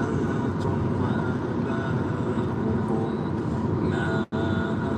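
Steady road and engine noise heard from inside a moving car, with a brief sudden drop-out of the sound about four seconds in.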